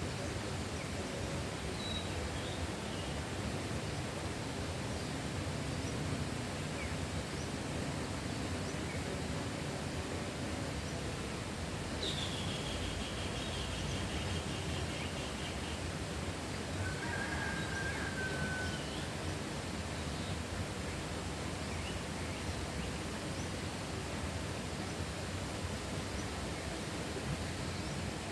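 Rural outdoor ambience: a steady, even rush of noise with birds calling now and then. A trill comes about twelve seconds in, and a short whistled note a few seconds later.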